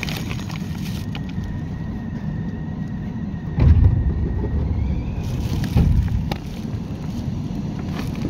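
Interior running sound of a JR West 201 series electric train: a steady low rumble of wheels on rail, with a thin high electrical whine that rises in pitch about five seconds in. Two heavy low thumps come about three and a half and six seconds in.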